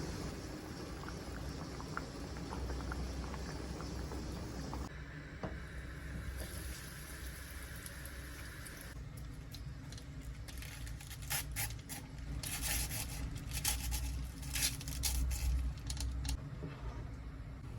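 Kitchen cooking sounds: a steady hiss of food cooking in a pan or pot, then a run of light clicks and clatter from utensils and dishes from about ten seconds in.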